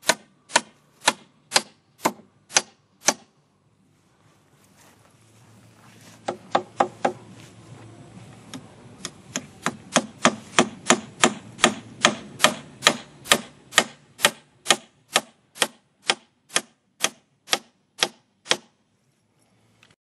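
Hammer driving nails into wooden poles, sharp ringing strikes about two a second: a short run of about seven blows, a pause of a few seconds, then a long steady run of about thirty blows that stops near the end.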